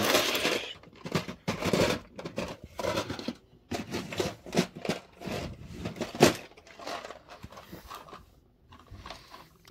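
LEGO minifigures clattering and clicking against one another and a clear plastic storage tub as they are rummaged through and sorted by hand: irregular small plastic clicks and rattles, with a sharp click about six seconds in.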